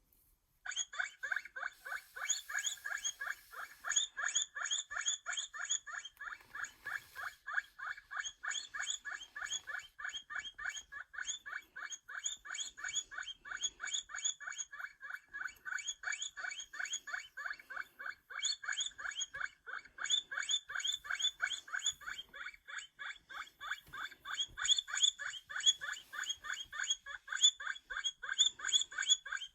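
Guinea pig squeaking in a fast, unbroken series of short high squeaks, about five a second, starting just under a second in.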